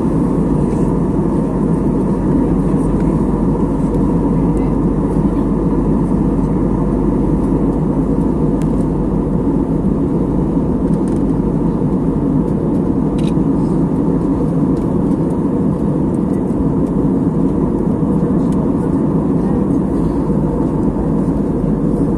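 Steady, low cabin noise of a jet airliner in cruise flight: engine and airflow noise heard from inside the cabin, even and unchanging.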